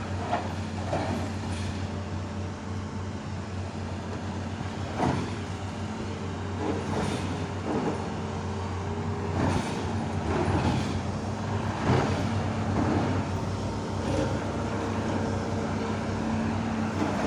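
A vehicle engine running with a steady low hum, with short knocks and clatters scattered through it.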